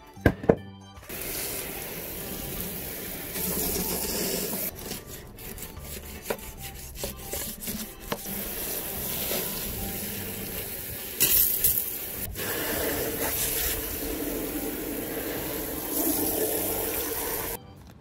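Garden hose spray nozzle jetting water onto ceramic tiles: a hiss of spray that starts about a second in, rises and falls in strength, is loudest about two-thirds of the way through, and cuts off just before the end. A few sharp knocks come right before the spraying begins.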